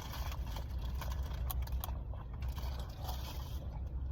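Small clicks and scrapes of something being handled, over a steady low rumble.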